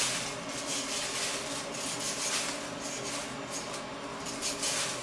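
Vegetable peeler scraping the skin off a raw carrot in repeated short strokes.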